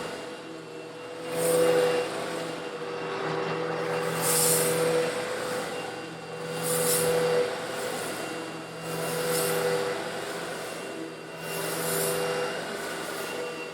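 An old Eureka vacuum cleaner running steadily as it sucks up coarse stone granules, its motor hum constant. A hissing rush swells every two to three seconds as the granules are drawn in.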